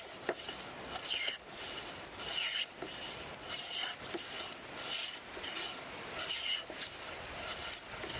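Traditional hand plane shaving wood in repeated strokes, about six of them a little over a second apart, each a short scrape.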